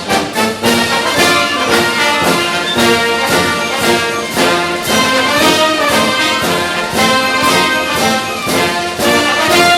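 Loud orchestral music led by brass (trumpets and trombones), with frequent sharp percussive hits.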